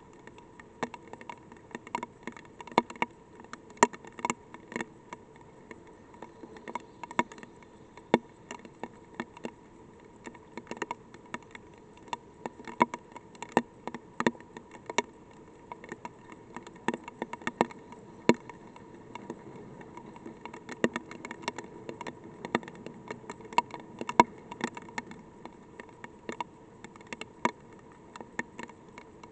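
Light rain, single drops tapping irregularly and sharply on the probe close to its microphone, several a second, over a steady buzzing hum.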